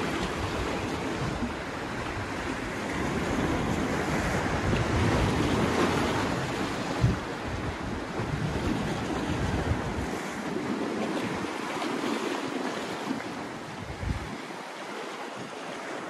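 Sea waves washing over breakwater rocks, with wind buffeting the microphone; the low wind rumble mostly drops away about ten seconds in.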